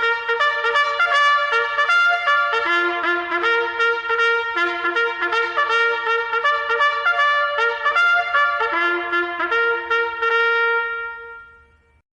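Military trumpet call: a quick, rhythmic run of short tongued notes on a few pitches, ending on a long held note that fades away shortly before the end.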